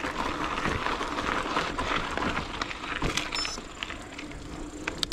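Mountain bike rolling over a rough path: steady tyre noise with scattered rattles and clicks, and a brief high squeak about three and a half seconds in.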